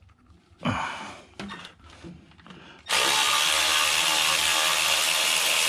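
Cordless power ratchet motor running steadily for about four seconds, starting about three seconds in, as it backs out a bolt.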